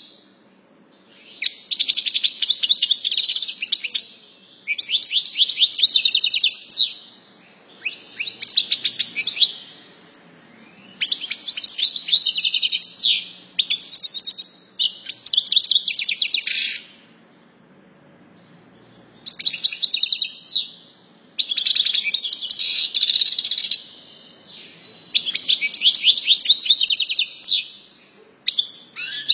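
European goldfinch of the large 'major' race singing: phrases of rapid high twittering and trills, each a second or two long, separated by short pauses, with a longer pause around the middle. A song its keeper rates as free of faults.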